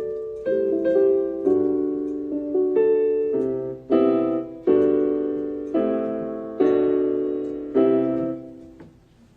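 Piano played slowly without singing: a series of about ten chords, each struck and left to ring and decay, the last one fading away near the end.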